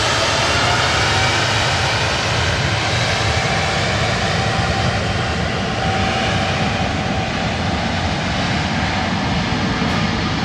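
Jet airliner's engines running loud and close, a steady rush of engine noise with several whining tones that drift slowly in pitch as the aircraft passes.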